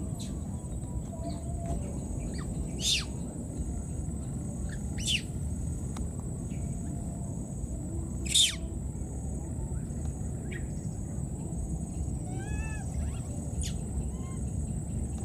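Short shrill animal calls: three loud ones spaced two to three seconds apart, then a softer run of warbling notes near the end. Underneath are a steady low rumble and a constant thin high-pitched tone.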